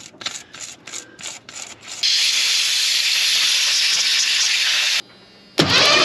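Socket ratchet clicking in quick, even strokes, about five a second, on the spark plugs of a Ford 302 V8. Then a loud, steady hiss of air for about three seconds that cuts off abruptly, and after a short break another loud noise begins near the end.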